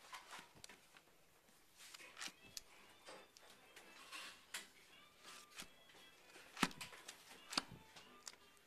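Vinyl LPs in plastic outer sleeves being flipped through one after another in a record bin: quiet, irregular slaps and crinkles of the sleeves and card covers knocking together, with two louder slaps near the end.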